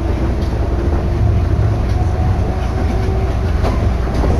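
Tokyo Monorail train running at speed, heard from inside the car: a steady low rumble with short faint whining tones and a couple of sharp clicks near the end.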